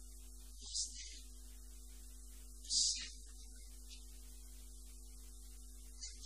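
Steady electrical mains hum on the recording, with a few faint held tones above it. Three short hisses cut through about two seconds apart, the loudest near the middle.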